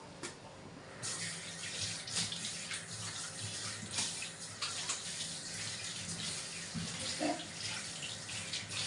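Kitchen tap turned on about a second in, water running from the faucet into a stainless-steel sink while hands rinse something under the stream, the splashing shifting as the hands move.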